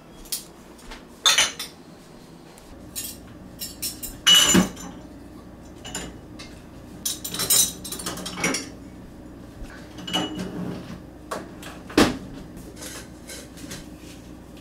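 Clean dishes and cutlery being taken out of a wire dish rack and put away: scattered clinks and clatters of crockery and utensils, with the loudest knocks about four seconds in and again about twelve seconds in.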